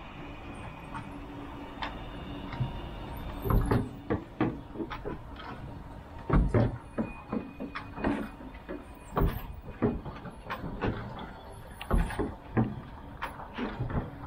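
Translohr rubber-tyred tram moving past close by: a faint steady electric whine in the first few seconds, then a run of irregular clunks and knocks, about one or two a second, as it rolls along its central guide rail.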